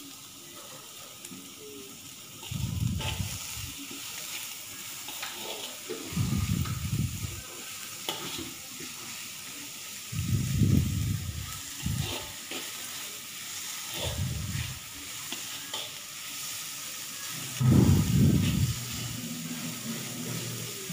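Shredded cabbage being stir-fried in a wok, a slotted spatula scraping and tossing it in bouts every few seconds over a faint sizzle.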